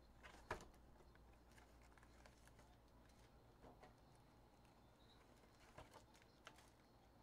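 Near silence with a few faint taps and soft clicks of a cardboard trading-card hobby box and its packs being handled, the clearest one about half a second in.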